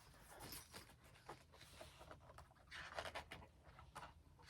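Faint rustling of glossy magazine pages being handled and turned, with a few small clicks and scrapes of paper.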